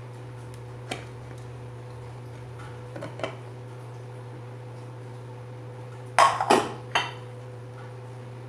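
Aluminium cake pan and plates knocking and clattering on a stone counter as a baked cake is flipped out of its pan onto a plate. There is a light click about a second in, two soft knocks around three seconds, and the loudest part, three quick clatters, about six to seven seconds in, over a steady low hum.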